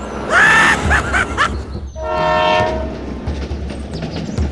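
Battery-powered toy steam locomotive running on plastic track over a steady low motor hum, its built-in sound unit playing a wavering whistle effect and then, about two seconds in, a steady horn toot lasting about a second.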